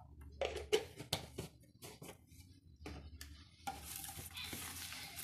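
A hand rubbing and squeezing sliced bitter gourd with salt in a plastic bowl, to draw out its bitterness: a run of short, crisp rustles and knocks. About three and a half seconds in, a steady hiss takes over.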